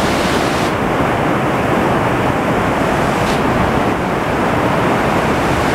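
River rapids rushing in loud, steady white water, the foaming current pouring past a bridge pier.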